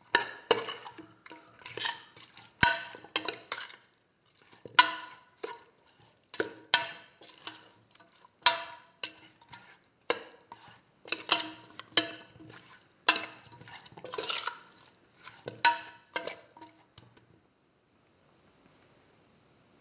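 A spoon scraping and knocking against the inside of a metal pressure cooker pot while beef and potato pieces are stirred with spices, in repeated irregular strokes that make the pot ring. The stirring stops near the end.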